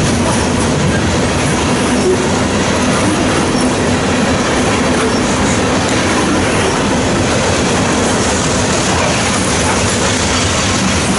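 Coal hopper cars of a slow-moving freight train rolling past: a steady, loud rumble of steel wheels on the rails.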